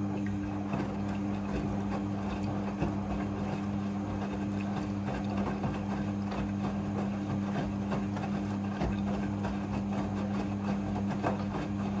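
Midea front-loading washing machine in its rinse cycle: the drum turning with wet clothes and water sloshing inside, small irregular knocks, over a steady low hum.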